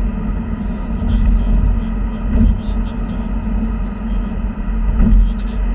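Car cabin noise at highway speed: a steady low rumble of tyres and engine, heard from inside the moving car.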